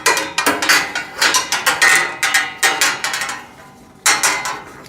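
Metal parts of a parts-storage rack clanking and clicking against each other as they are handled and fitted together: a quick run of sharp clacks with a slight ring, a short lull, then one more clack.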